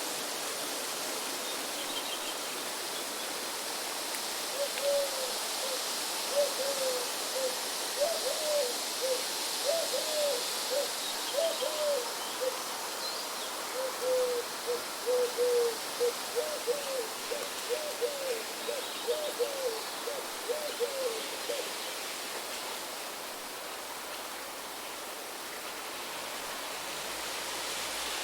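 Steady wind and rain noise, with a bird repeating short low calls two or three a second from about five seconds in until about twenty-one seconds.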